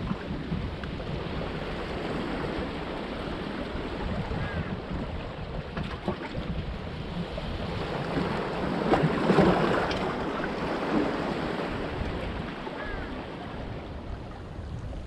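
Small sea waves washing and splashing among the large stones of a rock breakwater. One wave surges in louder about nine seconds in.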